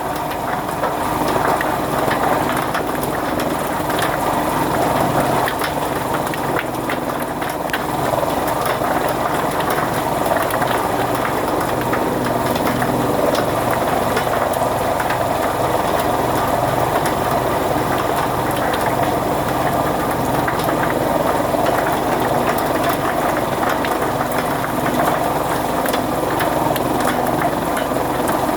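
Fodder chaff-cutter machine running steadily: a constant mechanical hum with rapid fine clicking from the cutting mechanism.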